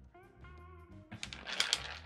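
Small steel balls of a moped's steering-head bearing spilling out as the front fork comes out of the frame, clattering in quick light clicks through the second half.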